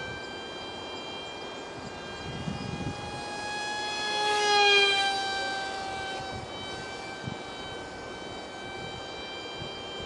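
Ultra micro foam RC jet's 8 mm motor and direct-drive propeller whining steadily. It swells to its loudest about halfway through as the plane passes close by, and the pitch dips slightly after.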